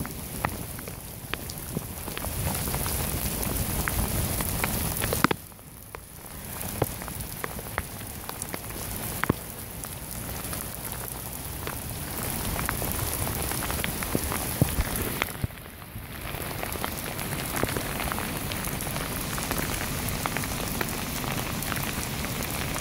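Heavy flash-flood downpour on paved streets: a steady hiss of rain with many sharp close drop taps. The hiss drops away suddenly for about a second twice, about five seconds in and again about fifteen seconds in.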